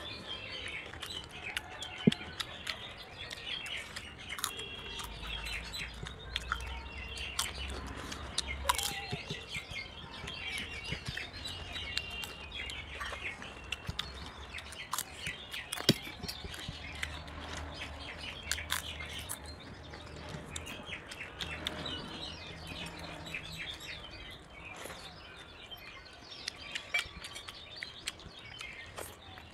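Small birds chirping over and over in the background, mixed with scattered sharp clicks and taps of hands and steel dishes as food is eaten.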